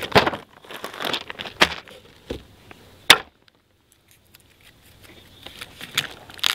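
Plastic packaging crinkling and rustling in short bursts as the parts of a wheel dibber are unwrapped and handled, with a sharp knock about three seconds in.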